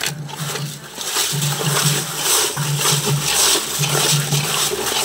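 Raw eels being scrubbed by hand with coarse salt in an aluminium bowl, a rhythmic gritty rubbing and squelching of several strokes a second, the usual way of stripping the slime from eel skin.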